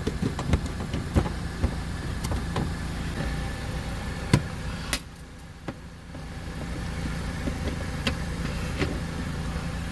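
Scattered sharp clicks and snaps of plastic push-pin clips being pried out of a car's fender liner, over a steady low hum that drops away for about a second midway.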